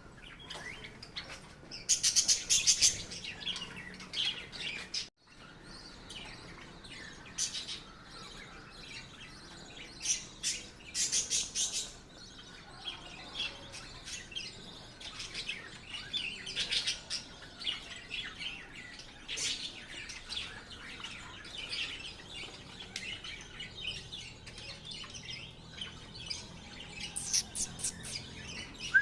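Lovebirds chirping in repeated bursts of rapid, high-pitched chatter, with quieter gaps between the bursts.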